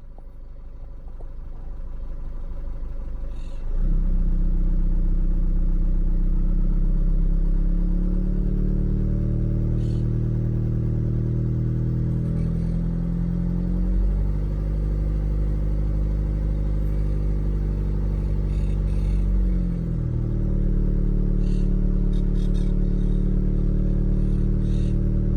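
PSA 2.2 HDi (4HT) twin-turbo diesel running at low revs. A quieter, rising noise gives way suddenly about four seconds in to a loud, steady, deep drone that shifts in pitch a few times. This drone ('ronquido') is the fault the owner reports, heard up to about 1200 rpm.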